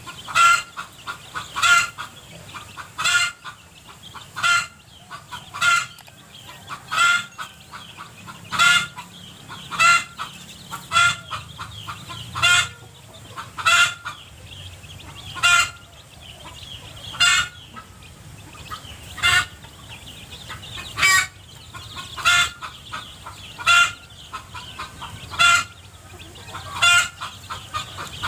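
Mother hen clucking while she forages, a short sharp cluck about every one and a half seconds at an even pace.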